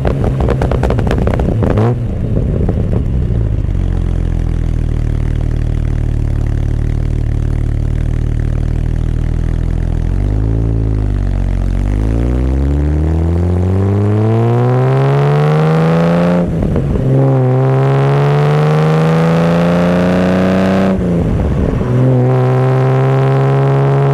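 1976 Triumph TR6's 2.5-litre straight-six engine and exhaust. At first it is mostly wind and road rush. It then settles to a steady low idle, gives a short blip, and pulls away with the engine note climbing through two brief breaks for upshifts.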